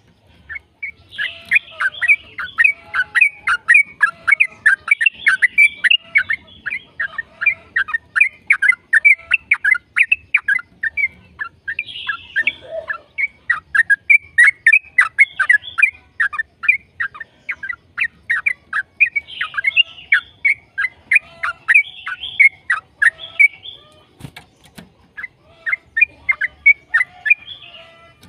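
Yellow-vented bulbul (trucukan) singing a long, fast run of short, bubbly down-slurred notes, the rapid 'ropel' song kept up almost without a break, with a short pause about 24 seconds in.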